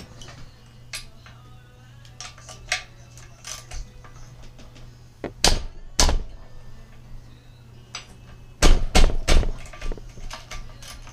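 Metal tools and engine parts clinking and knocking as hands work at the cylinder head of a Predator 212cc small engine during teardown: scattered light taps, with sharper knocks about five and a half and six seconds in and a louder cluster about nine seconds in, over a steady low hum.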